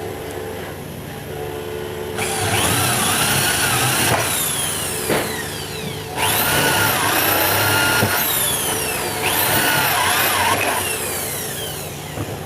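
Power tool motor running in three bursts, its whine dipping and recovering in pitch as it bites into the work and eases off between bursts.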